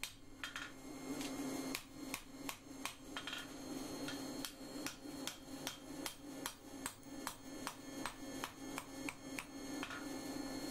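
Hand hammer striking a red-hot steel knife blade, forged from an old rasp, on an anvil: a steady run of ringing blows, about three a second, as the blade's edge is thinned out. A steady low hum runs underneath.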